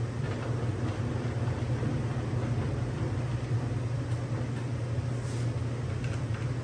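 Steady low hum of a running workshop machine motor, even in level with no starts or stops.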